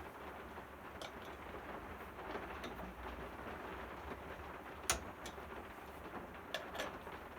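A few light metallic clicks and taps from the Allen key and blade bolt being worked on the mitre saw's blade arbor, the sharpest about five seconds in, over a low steady background hum.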